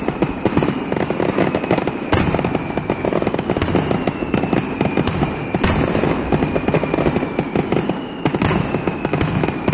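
Aerial fireworks display: a dense, continuous rattle of crackling and bangs from bursting shells, with several louder bangs standing out.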